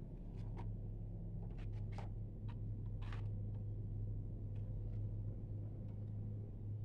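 Faint handling of a DVD: a plastic keep case slid out of its cardboard slipcover and turned over in the hands, giving a few soft clicks and a brief rustle about three seconds in, over a steady low hum.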